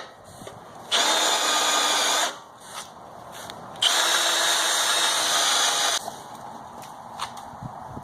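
Power drill boring a hole through the mower's sheet-metal underside, run in two bursts: about a second and a half, a pause, then about two seconds more.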